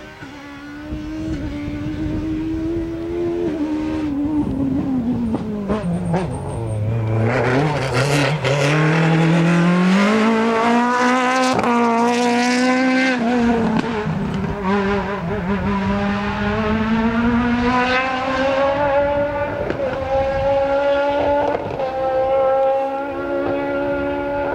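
Rally car engine on a special stage: the engine note drops as the car slows for a corner, then climbs sharply as it accelerates hard out and past, loudest about halfway through, and keeps rising more gradually through the gears toward the end.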